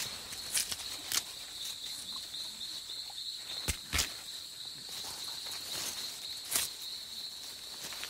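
Leafy plant stems being snapped and stripped by hand, a handful of sharp cracks, made on purpose to imitate an animal feeding as a non-threatening signal to nearby gorillas. Behind it runs a steady high drone of rainforest insects.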